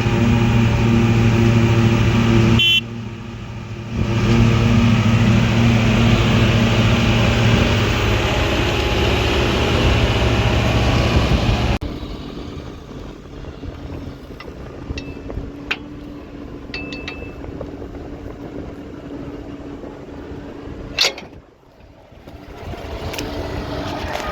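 Tractor engine running steadily under load during corn chopping. About twelve seconds in, the sound drops abruptly to a quieter, steady engine hum with scattered light clicks and one sharp click.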